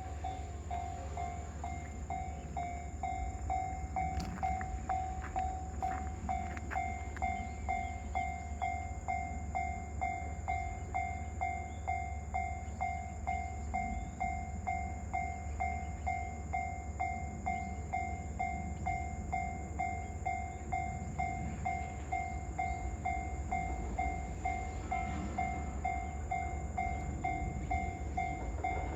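Japanese level-crossing warning bell ringing steadily, about twice a second, while a train runs past with a low rumble and a run of wheel clicks a few seconds in.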